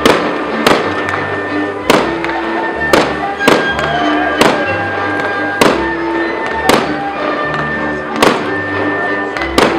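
Fireworks bursting over music: about nine sharp bangs at irregular intervals of roughly a second, with held notes of the music sounding beneath.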